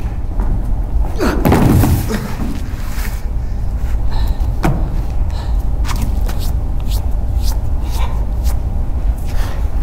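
A loud sound falling in pitch about a second in, then scattered light knocks and scuffs of an actor moving on a wooden stage floor, over a steady low hum.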